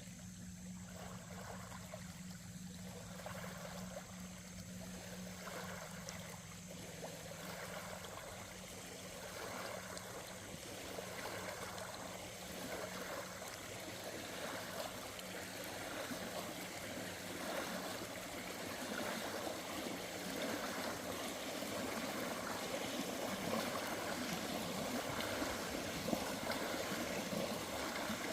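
Water flowing and trickling steadily, like a stream, growing slightly louder over time. A low steady hum underneath fades out in the first several seconds.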